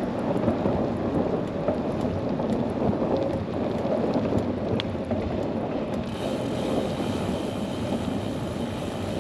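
Steady wind buffeting and rumble on a microphone carried on a moving bicycle.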